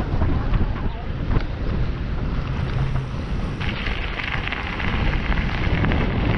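Wind buffeting the microphone while bicycle tyres roll across a metal-grated bridge deck; about three and a half seconds in the tyres run onto loose gravel and a steady crunching hiss sets in.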